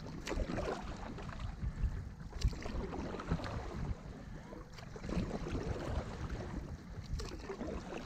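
Stand-up paddles stroking through calm river water: blades dipping and pulling with irregular splashes and drips, over a low rumble.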